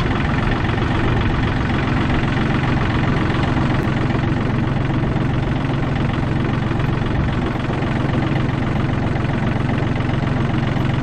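Compact tractor engine running steadily as the tractor drives forward, with a constant low hum.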